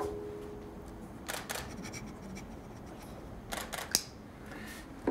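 Camera shutters clicking in two short clusters, a few clicks about a second and a half in and again around three and a half to four seconds in. A held music note fades out at the start.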